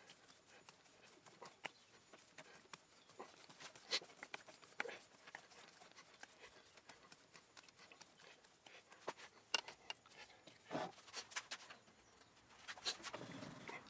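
Faint, irregular metallic clicks and ticks as a lathe's three-jaw chuck is turned by hand to run a 5BA tap into a high-tensile steel valve blank. Clusters of louder knocks and clatters come in the last few seconds as the tooling is changed over to a parting tool.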